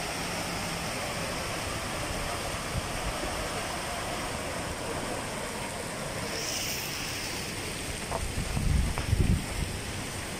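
Steady rushing noise of rain and floodwater. Wind buffets the microphone in a few low thumps about eight to nine seconds in.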